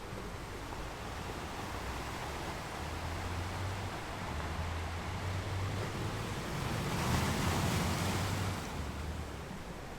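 Ocean surf: a continuous rush of waves with a low rumble, swelling louder as a wave breaks about seven seconds in, then easing back.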